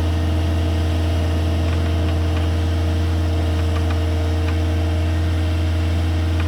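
Pile-driving rig running with a loud, steady low hum and a few steady higher tones, with no hammer blows.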